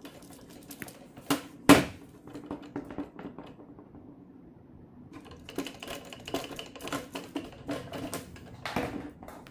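Irregular clicks and knocks of things being handled at close range, with one sharp loud click about two seconds in and a denser run of clicking in the second half.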